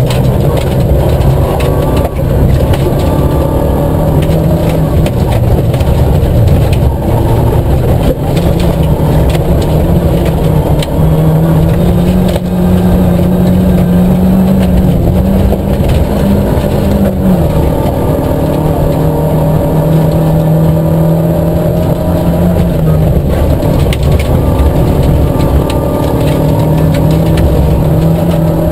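A Nissan Micra K11 rally car's four-cylinder petrol engine pulling hard at high revs, heard from inside the cabin, rising and falling with the throttle and stepping in pitch at several gear changes. Gravel noise from the tyres and occasional stones clicking against the car run underneath.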